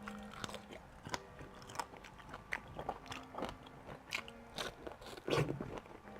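A person chewing breakfast food close to the microphone: quiet, irregular chewing and wet mouth clicks, with a louder mouthful about five seconds in.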